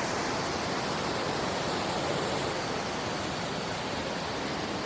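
Waterfall making a steady, even rushing roar of falling water.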